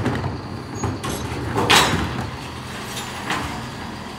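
Mercedes-Benz Econic bin lorry's engine running steadily while its Terberg OmniDEL lifts tip two wheelie bins into the rear hopper. A loud clatter comes a little under two seconds in as the bins empty, with a lighter knock about three seconds in.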